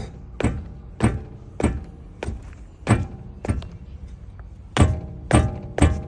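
Geely Monjaro suspension knocking: a string of sharp knocks about every half second, each with a short metallic ring, and a pause of about a second near the end before they resume. The knock is a suspension fault.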